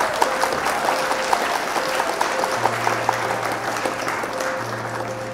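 Applause sound effect, a crowd clapping, over background music.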